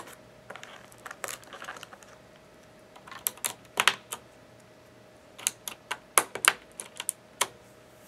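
Plastic keycaps being pressed down onto the Cherry MX switches of a CM Storm Quickfire TK mechanical keyboard: sharp, irregular clicks in small clusters, with short pauses of about a second between groups.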